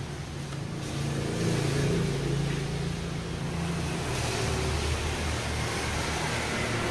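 A steady low mechanical hum with a rushing noise behind it; the hum shifts in pitch about four seconds in.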